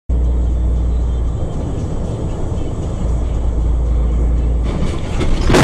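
Driving noise recorded by a truck's dash camera: a steady low rumble, with music playing over it. Near the end it grows louder, with a few sharp bangs.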